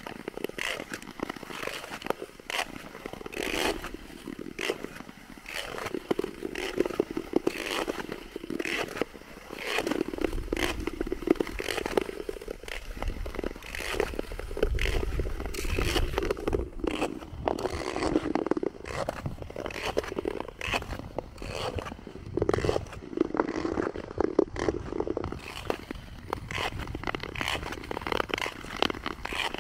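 Ice skate blades scraping and gliding over natural lake ice in a steady run of repeated strokes.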